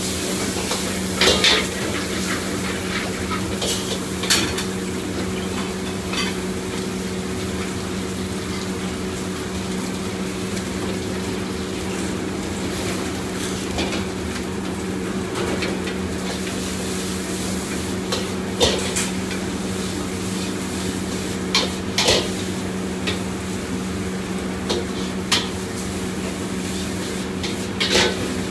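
A metal ladle stirring and scraping in a wok, with food sizzling, and sharp knocks of ladle on wok every few seconds. A steady low hum runs under it.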